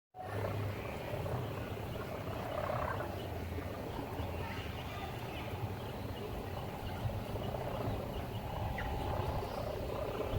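A sawangan, the bamboo hummer on a kite, droning steadily in the wind with a low, rough snoring hum.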